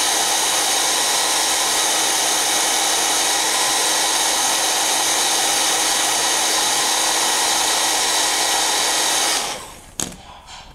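Handheld hair dryer blowing a steady rush of hot air onto a cleaned inkjet print head to dry it out. It switches off about nine seconds in, followed by a few light knocks as things are handled on the bench.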